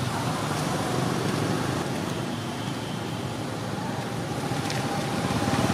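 Steady rumble of motor traffic running in the background, with one engine growing louder near the end.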